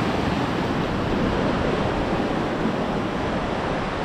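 Rushing water of the Siang and Yamne rivers where they meet, a loud, steady, even rush with no breaks.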